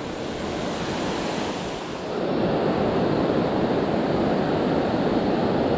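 Steady rushing of water spilling at a dam, growing louder about two seconds in.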